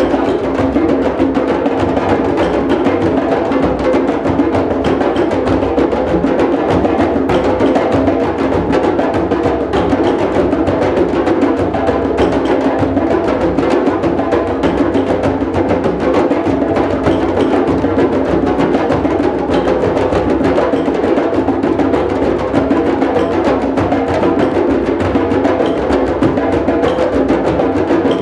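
Drum circle playing: many drums struck together in a dense, steady groove that carries on without a break.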